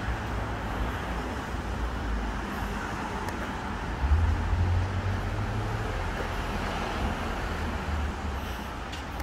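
City street traffic noise, a steady wash of passing vehicles, with a louder low rumble for a couple of seconds about four seconds in.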